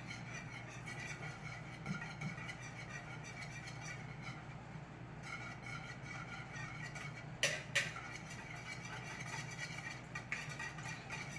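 Wire whisk mixing brownie batter in a bowl: soft, irregular stirring and scraping, with two sharp clicks of the whisk on the bowl about seven and a half seconds in, over a steady low hum.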